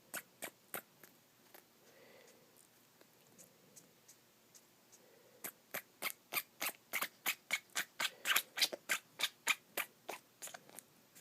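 Pet rat sneezing in a fit: a few sharp little sneezes at the start, then after a pause a rapid run of them, about three a second, for some five seconds.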